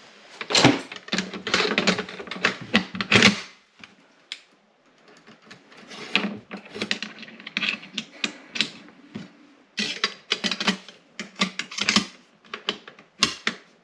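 Hard parts of a rifle clicking and clacking in quick, irregular runs as it is handled and put back together by hand, with a short lull about four seconds in.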